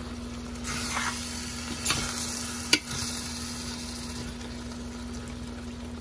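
A spoon stirring chicken and fenugreek leaves in cream in a stainless steel pan, the food sizzling. There is a scraping hiss for the first half, and the spoon clinks sharply against the pan twice, about two and three seconds in. A steady low hum runs underneath.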